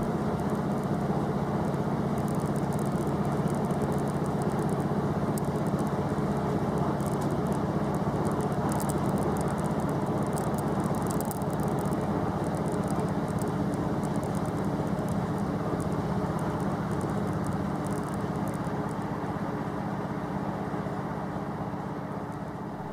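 Running noise inside a moving train carriage: a steady hum and rumble from the engine and wheels on the rails. There is a spell of light high clicking and rattling in the middle, and the sound fades down near the end.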